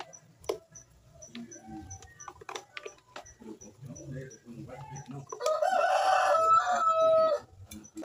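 Light clicks and taps from the Arno fan's opened oscillation gearbox as it is handled and fitted back onto the motor. Then, about five and a half seconds in, a loud animal call of about two seconds, ending in a held note.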